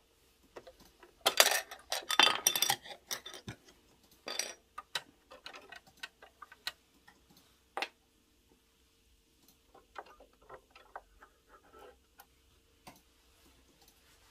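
Clear plastic bobbin cover of a drop-in (horizontal-hook) bobbin sewing machine being unclipped and taken off, then the bobbin being handled at the bobbin case: a quick cluster of plastic clicks and rattles in the first few seconds, then single clicks and lighter scattered taps.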